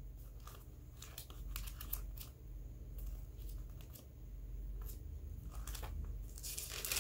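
Pages of a Bible being leafed through: soft paper rustles and flicks, with a louder rustle near the end.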